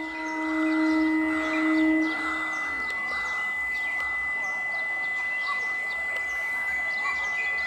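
A distant electric train's horn held for about two and a half seconds, then dying away. Birds chirp throughout over a steady high-pitched whine.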